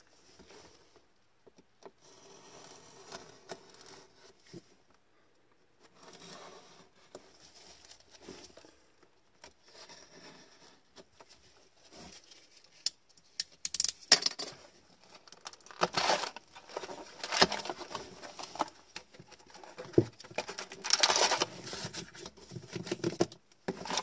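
Plastic shrink wrap being slit, torn and crinkled off a cardboard trading-card hobby box, then the box opened and its foil packs pulled out and handled. Faint scraping at first, then louder bursts of crackling through the second half.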